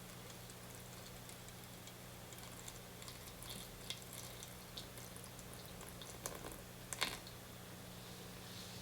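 Faint scattered light clicks and taps, with one sharper knock about seven seconds in, over a steady low hum.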